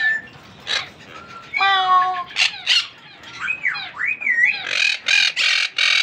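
Downy parrot chicks calling: short chirps that glide up and down, then, from about two-thirds in, a fast run of harsh, raspy squawks, about four a second.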